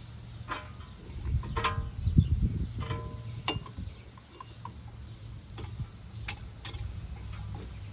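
Sharp metallic clicks and clinks, a few ringing briefly, from adjustable tongue-and-groove pliers being set and squeezed on a brake caliper to push the piston back against the old pad. A louder low rumble comes about two seconds in.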